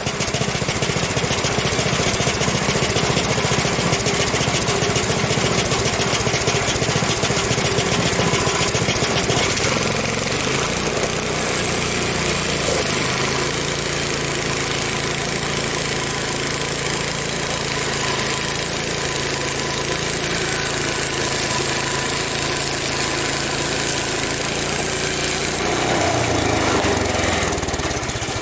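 Frontier OS23 bandsaw sawmill's small gasoline engine running at high speed, driving the band blade through an ash log on a first cut. The engine note shifts about twelve seconds in and again a couple of seconds before the end.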